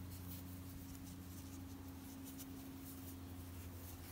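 Faint rustling and light scratching of a metal crochet hook pulling yarn through while half double crochets are worked into a magic ring, over a low steady hum.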